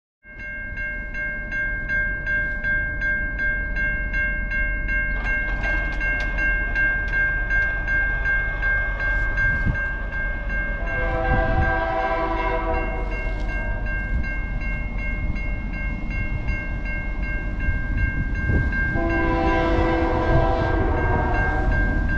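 An approaching locomotive's air horn sounds two long blasts for the crossing, over the steady, rapidly repeating ring of the crossing's warning bell and a low rumble from the train.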